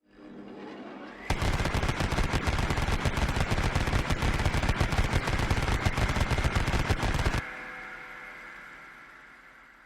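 Vulcan rotary cannon firing: a rising whine for about a second, then one long, unbroken burst of very rapid fire lasting about six seconds. After the burst, a steady high whine lingers and fades out.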